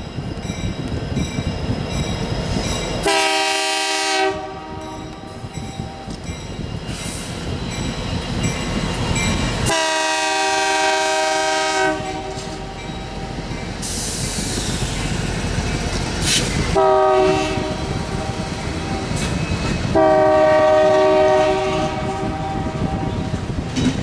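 Norfolk Southern freight locomotive's multi-chime air horn sounding long, long, short, long, the grade-crossing signal, over the steady rumble and clatter of the passing freight train.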